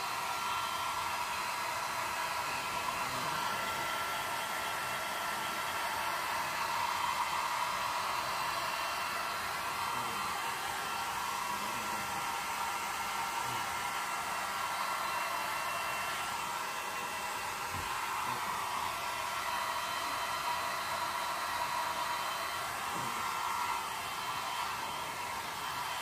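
Handheld hair dryer running steadily, a constant rush of air with a thin steady whine, blowing on a wet Yorkshire terrier's coat to dry it.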